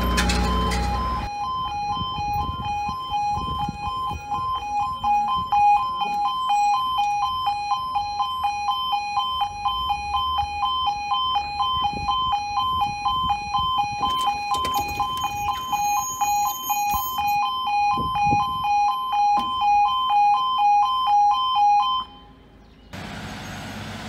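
Level crossing audible warning alarm sounding, alternating quickly between a high and a low tone, then cutting off near the end.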